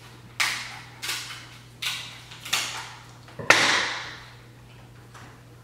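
King crab leg shells cracking as they are broken and cut open by hand: five sharp, crunchy cracks spaced under a second apart, the last one the loudest.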